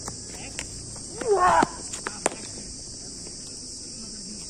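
Steady high chirring of insects, with a short loud call that rises and falls in pitch a little over a second in, followed by a few sharp knocks, the sharpest just after two seconds.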